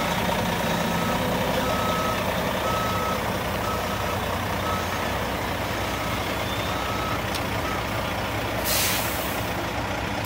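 Dump truck reversing: its backup alarm beeps about once every three-quarters of a second over the steady running of its diesel engine. The beeping stops near the end, and a short air-brake hiss follows as the truck halts.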